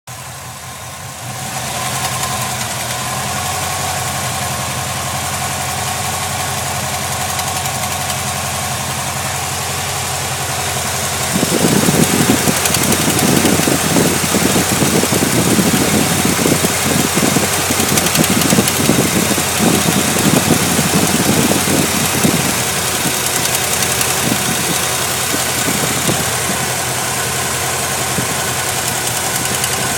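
GM LT1 V8 engine running at idle with an erratic valve-lifter tick, the uploader's reason for recording it. About a third of the way in, the engine sound turns louder and rougher with a fast pulsing for roughly ten seconds, then settles back.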